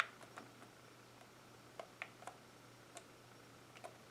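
Buttons on a ceiling fan's infrared remote being pressed: a sharp click at the start, then a string of soft, irregular clicks. A faint steady low hum runs underneath.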